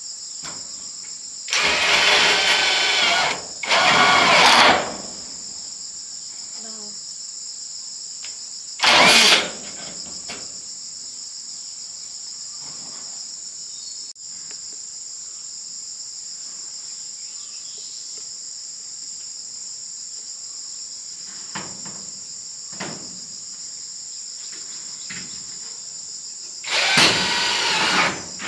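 Steady high-pitched insect drone, broken by four loud bursts of a power tool, each about a second long: two close together near the start, one about nine seconds in, and one near the end.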